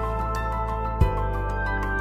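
Calm background music: held tones over a steady low bass, with a single low beat about a second in.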